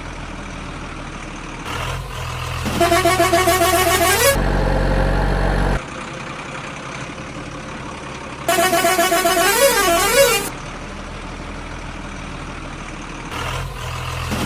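Electronic toy-vehicle sound effects: a horn-like jingle of stepped tones plays twice in short bursts about six seconds apart. A low engine-style hum runs between them.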